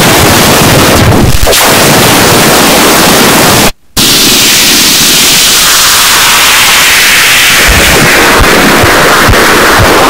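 Loud, harsh wall of noise from a picture turned into sound by Photosounder's image-to-sound synthesis, the image's shapes heard as shifting bands of hiss. It cuts to silence for a moment about four seconds in; after that a bright band of hiss slowly falls in pitch.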